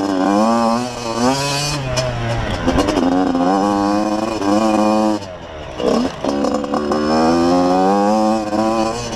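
Yamaha YZ85 two-stroke dirt bike engine under way at speed, its pitch climbing and dropping several times as the throttle is worked, with the throttle shut briefly about five seconds in before it pulls again.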